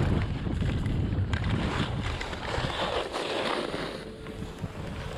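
Skis hissing and scraping over packed snow, with wind buffeting the microphone while the skier runs at speed. The low wind rumble fades about halfway through as the skier slows, and the scrape of the skis comes to the fore.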